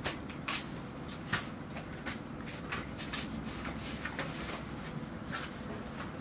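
Golden retriever puppies moving about on a hard floor, making irregular light clicks and taps, over a steady low rumble.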